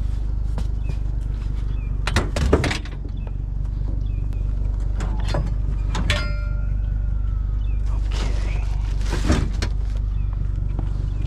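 Vehicle engine idling steadily while scrap metal is handled, with several clanks and knocks; one strike about six seconds in leaves a short metallic ring, and a clattering stretch comes near the end.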